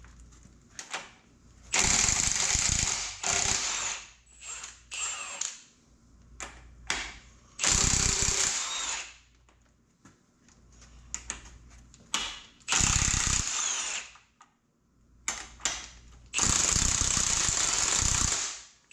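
Large impact wrench hammering in five short bursts, loosening bolts, with light metal clinks between runs. It is loud enough that hearing protection is called for.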